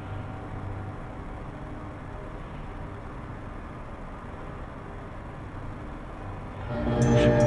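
Low, steady ambient rumble with a few faint held tones, the dark background drone of a horror soundtrack; eerie ambient music swells in loudly near the end, with high chime-like strokes.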